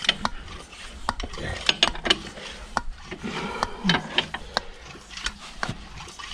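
Irregular sharp clicks and knocks as a tractor's front wheel and tyre are handled and worked on by hand.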